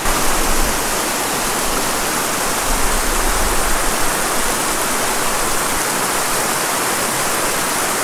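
A mountain stream rushing over a small rocky cascade, a steady, even rush of water.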